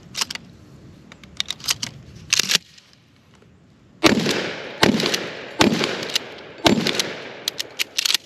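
A Remington shotgun fired four times in quick succession, each blast trailing off over most of a second. A run of sharp clicks comes in the first couple of seconds before the shots.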